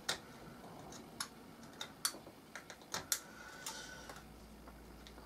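Small hand tool scraping a plastic model-kit part to smooth down the spot where a pilot figure was cut off: light, irregularly spaced scrapes and clicks.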